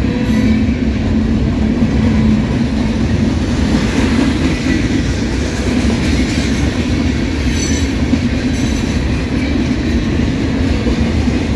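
Norfolk Southern freight train rolling past close by: a steady, loud rumble of freight cars' wheels on the rails, with a faint wheel squeal about halfway through.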